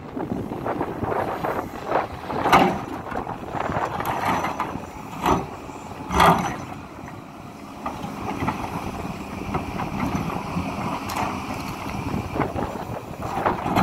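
A Hidromek HMK 230LC 24-ton crawler excavator at work: its diesel engine runs steadily under a handful of sharp knocks and clanks, the loudest about two and a half and six seconds in.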